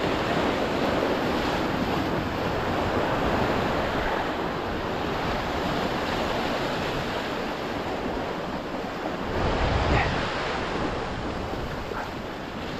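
Sea waves washing steadily against rocks, with wind on the microphone; the wash swells briefly about ten seconds in.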